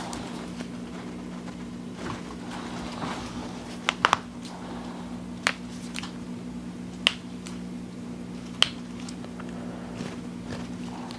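Joints cracking under chiropractic adjustment: a quick cluster of three sharp pops about four seconds in, then single pops about every second and a half. A faint steady hum runs underneath.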